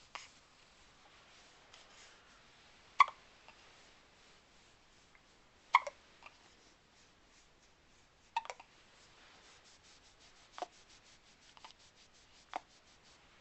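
Hiccups: five short, sharp hiccups about every two and a half seconds.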